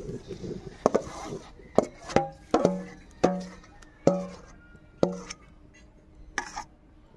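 A metal ladle knocking and scraping against a stainless-steel bowl as thick boiled mango pulp is scraped out into a kadai. There are about eight sharp knocks, each leaving the bowl ringing briefly.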